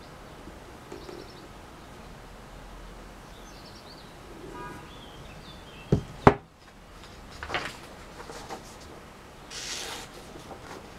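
Two sharp knocks close together, a leather knife strop set down on a hard surface, followed by a sheet of paper rustling as it is handled.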